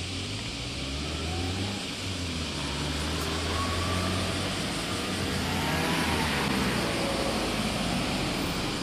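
Street traffic: a steady low engine hum, then a car passing about six seconds in, its engine and tyre noise swelling and fading.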